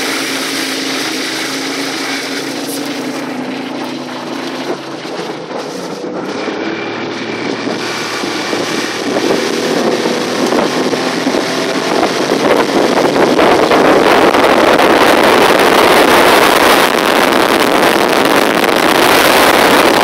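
A RIB's outboard motor running steadily under way, with a steady engine hum, water rush and wind on the microphone. About halfway through, the rush of wind and water grows louder and covers the engine.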